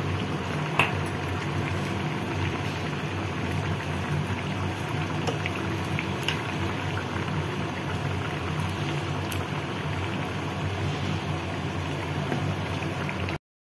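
Chicken rogan josh curry simmering in a pot, a steady bubbling hiss, with a few light clicks of a spoon stirring against the pot; the sound cuts off suddenly near the end.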